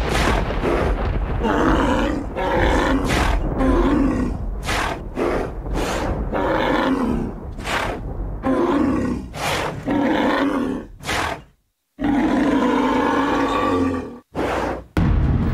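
Deep animal roars and bellows layered with sharp impact hits, a sound-designed intro. Each roar lasts about a second. The sound drops out briefly twice near the end.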